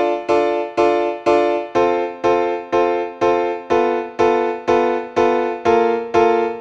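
Background music: the same chord struck over and over at a steady pace, about two a second.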